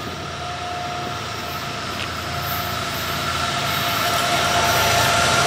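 BNSF GE diesel locomotives leading a fast intermodal train as it approaches. The engine rumble and rail noise grow steadily louder, with a steady high whine over them.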